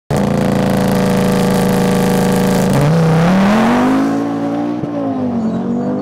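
Audi TT RS rally car's turbocharged five-cylinder engine running hard. Its pitch holds steady for the first half, then rises, dips briefly and rises again as the revs change, growing a little quieter toward the end.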